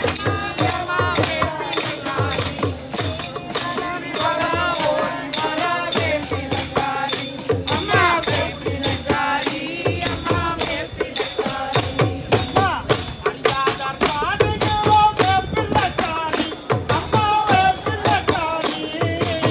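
Group devotional singing with hand cymbals and tambourine jingling on a steady, quick beat, with a two-headed barrel drum under it.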